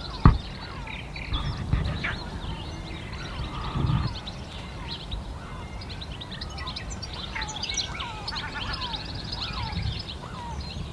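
Several small birds chirping and singing outdoors, overlapping calls throughout. A single sharp knock comes about a quarter second in, and there are a few brief low rumbles, like wind or handling on the microphone.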